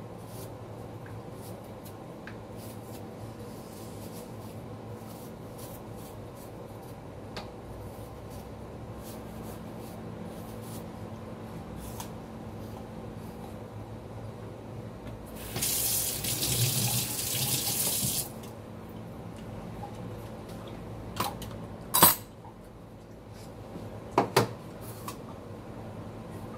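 Kitchen tap running into the sink for about three seconds, about two-thirds of the way through, over a faint steady hum. A few sharp knocks follow near the end, the loudest a single sharp knock.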